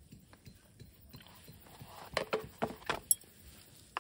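A few short knocks and clicks of objects being handled on a camp table, bunched together in the second half, with one sharp click about three seconds in.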